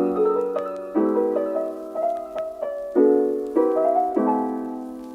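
Background piano music: struck notes and chords that ring and fade, with a new chord about every second and lighter notes in between.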